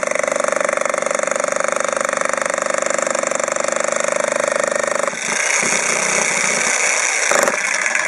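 1500 W Arksen electric demolition hammer pounding a pointed bit into a concrete slab in a rapid, steady stream of blows. About five seconds in the sound turns harsher and hissier as the point wedges in the concrete, where it gets stuck.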